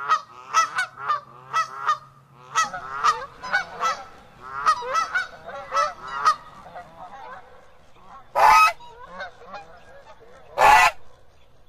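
Geese honking in quick, overlapping runs of short calls. After about six seconds the calls turn fainter, and two louder, harsher honks come near the end.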